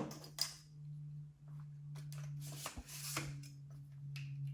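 Aluminium camera tripod being handled and adjusted: a few short clicks, knocks and rattles as its parts are moved, over a steady low hum.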